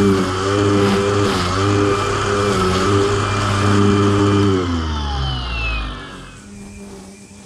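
Motor of a piece of yard power equipment running steadily, then slowing and falling in pitch about five seconds in, dropping to a much fainter hum.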